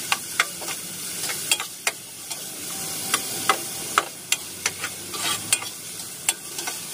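Onion, ginger and tomato sautéing in a pot: a steady sizzle, with irregular clicks and scrapes of a utensil stirring against the pot.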